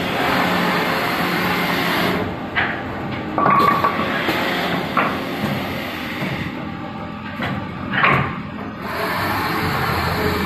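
CNC automatic-feeding wood lathe cutting a wooden blank, a steady rasping noise; about two seconds in the cutting stops and the machine knocks and clunks several times as the finished piece is released and a new blank is fed in and clamped. Cutting starts again near the end.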